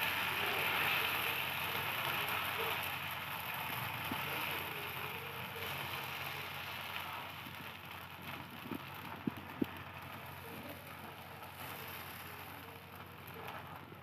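Dosa batter sizzling on a hot tawa as it is spread thin with a ladle, a steady hiss that slowly dies down as the batter sets. A few light clicks come about nine seconds in.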